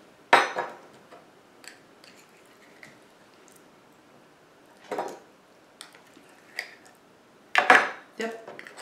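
A metal spoon scraping and clinking against a small tin can and a stainless steel measuring cup as canned chicken salad is scooped out. There are a few separate knocks: one just after the start, one about halfway, and several close together near the end.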